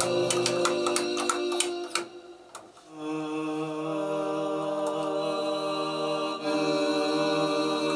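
Chords of a sampled sung voice with reverb, played like a choir: one sustained chord dies away about two seconds in, with a run of sharp clicks over it, and a new held chord starts about a second later.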